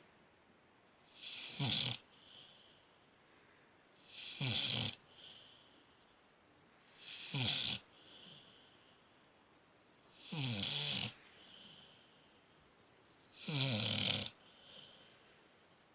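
A dog snoring in its sleep: five loud snores about three seconds apart, each followed by a softer breath.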